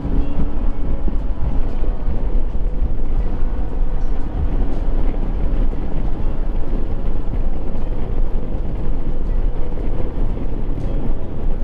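Royal Enfield Himalayan's single-cylinder engine running while riding at road speed, under a steady, loud rumble of wind buffeting the microphone.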